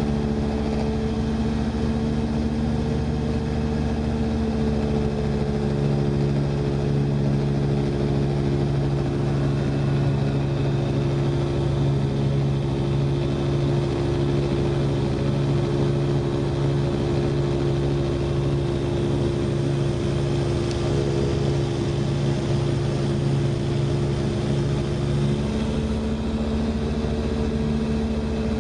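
SeaMax light amphibian's engine and propeller running steadily, heard from the cockpit. Its pitch drops about five seconds in as power is pulled back for the approach to the sea, then rises again a few seconds before the end as power comes back on for the touch-and-go.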